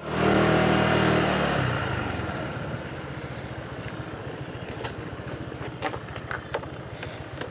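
Small motor scooter engine running, louder in the first second or two and then easing to a steady low putter, with a few light clicks near the end.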